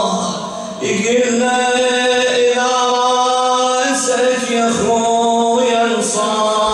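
A solo male voice chanting an unaccompanied Arabic Ashura mourning lament, drawing out long, wavering held notes, with a short breath about a second in.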